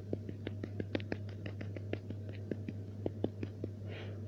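Rapid light tapping on a small hard object, about five or six sharp clicks a second, slightly uneven, thinning out near the end.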